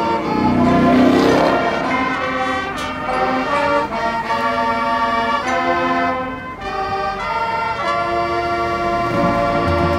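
High school marching band playing held chords that change every second or so, with a loud swell about a second in.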